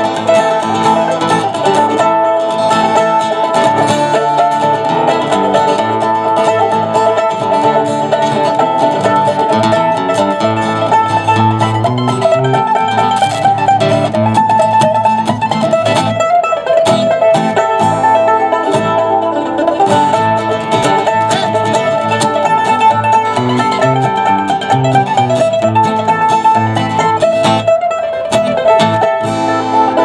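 Acoustic guitar and mandolin playing together in a country style, the mandolin picking a lead over the strummed guitar, with no break.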